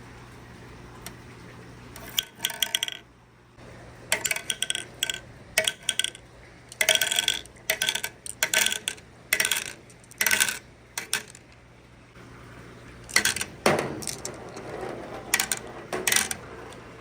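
Marbles clicking and clinking along a wooden marble run, in clusters of sharp hits with a brief ringing tone, starting about two seconds in and repeating through to the end, over a low steady hum.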